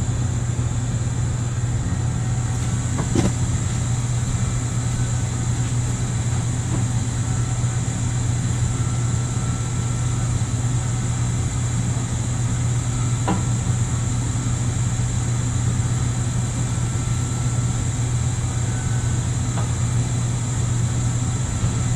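Navien tankless water heater running just after ignition, its burner and combustion fan giving a steady hum and rush, mixed with a furnace running. A couple of faint clicks are heard, about three seconds in and again near the middle.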